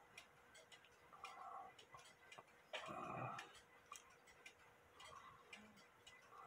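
Faint, steady ticking of a WUBA Warmink Dutch clock's brass movement, running while held out of its case. A brief louder handling noise comes about three seconds in.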